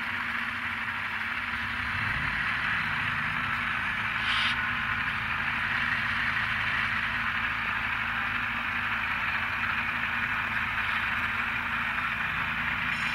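N-scale model freight train rolling along the track: a steady rushing rattle of small metal wheels on rail, with the diesel engine sound from the locomotives' ESU LokSound sound decoders running low underneath.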